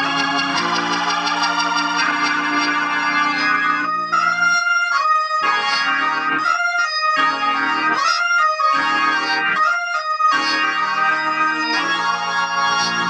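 Hammond organ played through its newly recapped tube amplifier as a sound check, giving full, clean held chords. From about four seconds in to about ten seconds in it plays a run of short, detached chords with brief gaps between them, then goes back to held chords.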